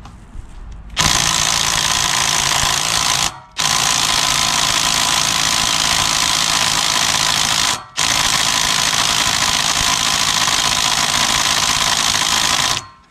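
Cordless impact wrench hammering in three long runs of about three to five seconds each, with brief pauses between. It is driving home the 3/8-24 fine-thread bolt that holds a centrifugal clutch onto a Honda GX340 engine's crankshaft.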